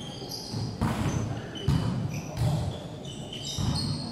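A volleyball being struck during a rally, several sharp hits about a second apart echoing in a large sports hall, with short squeaks of shoes on the court floor.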